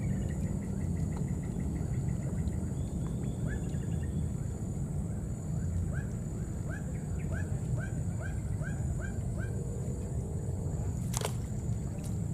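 Outdoor ambience: a steady low rumble, with a run of short, rising chirps at about three a second through the middle and one sharp click near the end.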